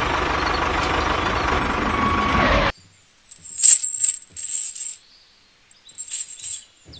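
A steady engine-like running noise from the mini tractor, which cuts off suddenly a little under three seconds in. Then come a few short, light metallic clinks and rattles.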